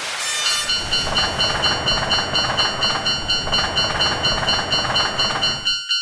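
Japanese railroad-crossing alarm ringing in a fast repeating electronic ding over the rumble of a passing train; both stop suddenly near the end.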